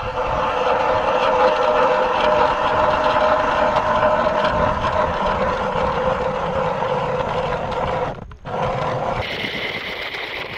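Hand-cranked ice auger drilling a fishing hole, its blades grinding and shaving through the ice in a steady scrape. It stops briefly a little after eight seconds, then resumes at a higher pitch.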